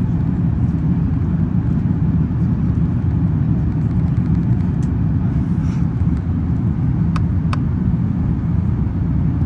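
Steady low rumble of an Airbus A380 heard from inside the passenger cabin: its four Engine Alliance GP7200 engines running while the jet moves, with two short clicks about seven seconds in.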